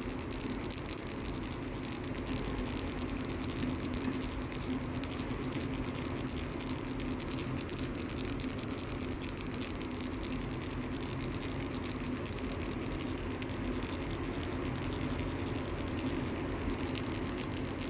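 Ball-shaped baby rattle shaken without a break, a fast, even stream of rattling clicks.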